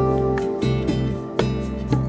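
Background music: acoustic guitar plucking held notes.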